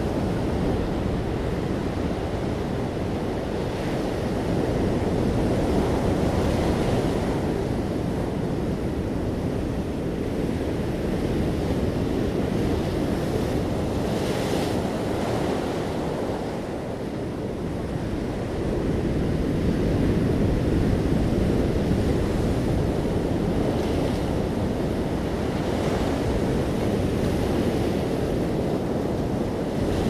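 Atlantic surf breaking and washing up the beach: a continuous rush of waves that swells and eases every few seconds, with several brighter hissing washes as water runs up the shore.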